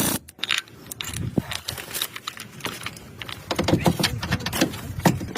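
Irregular light clicks and knocks, with a denser run of them about three and a half seconds in.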